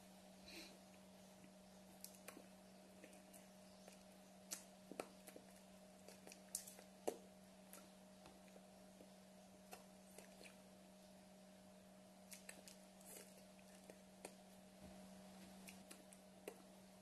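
Near silence: room tone with a steady faint electrical hum and scattered faint clicks and taps.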